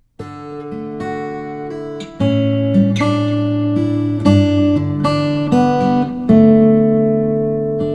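Instrumental background music with sustained, changing melodic notes, starting just after the beginning and getting louder about two seconds in.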